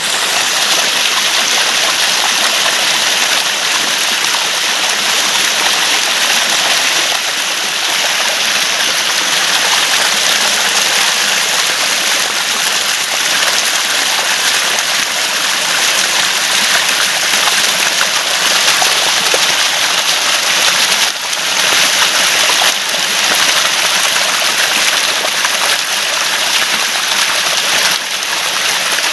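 Water gurgling and rushing steadily, like a small stream running over stones.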